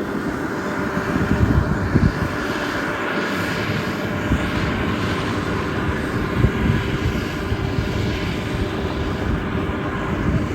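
Kubota DC688Q combine harvester running steadily, a continuous engine and machinery drone.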